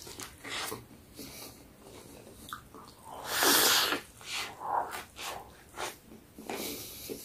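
A person's short, noisy breaths and sniffs, with one louder rush of breath lasting under a second about three seconds in.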